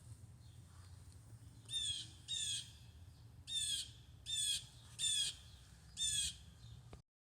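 A bird squawking: six short, harsh calls, each falling slightly in pitch, spaced under a second apart.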